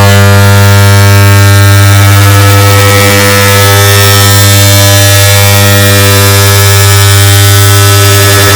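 Air conditioner's start-up hum, boosted until it distorts: a very loud, steady electric buzz with a strong low hum and many overtones, held without a break.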